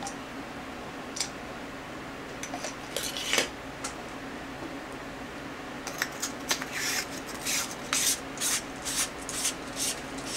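Light metal clinks, clicks and scrapes from handling a flashlight's battery cradle and 18650 lithium-ion batteries. A few separate clicks come first, then a quick run of clinks and scrapes from a little past the middle to the end, over a faint steady hum.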